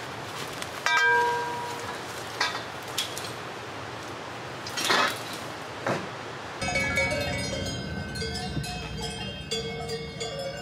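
Metal pipes clanking as they are carried; one knock about a second in rings for a moment at a clear pitch. Then, from about two-thirds through, several cowbells jangle together as cows walk up close.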